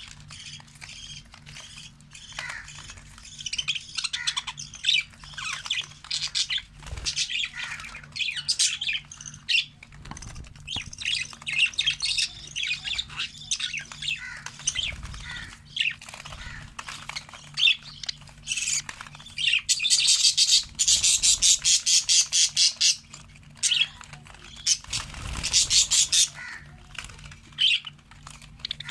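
Budgerigars calling: steady high-pitched chatter and squawks, broken about two-thirds of the way in, and again a little later, by loud runs of rapid, pulsing squawks.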